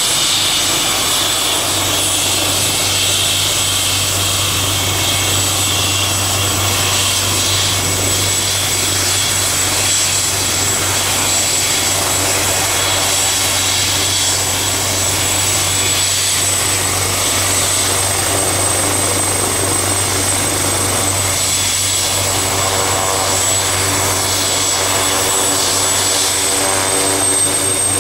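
Leonardo AW139 helicopter running on the ground with rotors turning: the high, steady whine of its twin Pratt & Whitney PT6C turboshaft engines over the rotor noise, the whine rising slightly near the end.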